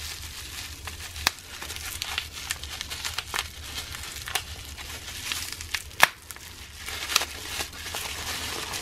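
Plastic bubble wrap crinkling and crackling as it is unwrapped by hand, with sharp clicks scattered throughout, the loudest about a second in and about six seconds in.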